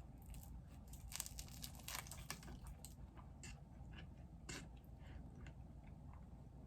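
Faint, close-up eating sounds: crisp crunching and chewing, with clusters of sharp clicks in the first two and a half seconds and a few scattered ones after, over a steady low hum.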